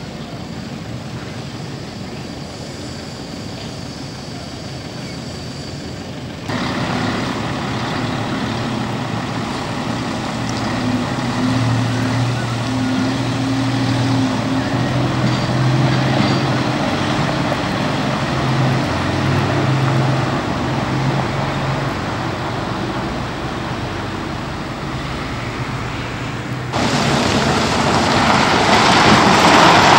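Heavy vehicle engine running and working under load, its pitch rising and falling, with abrupt shifts in the surrounding noise.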